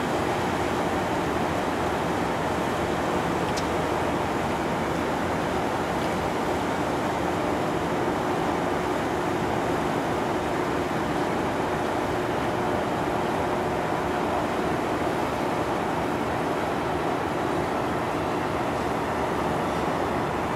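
A ferry's engines under way with its propeller wash churning behind the stern: a steady rushing of water over a faint, even hum.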